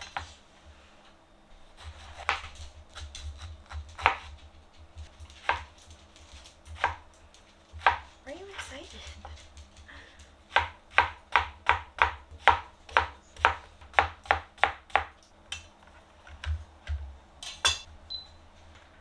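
Kitchen knife cutting zucchini on a cutting board. First come a few separate cuts about a second and a half apart, then a fast, even run of dicing chops about three a second, and near the end a short scrape.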